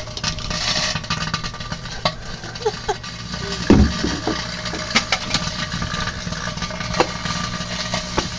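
Microwave oven running with a steady hum, with a few sharp snaps from the metal sparking inside it.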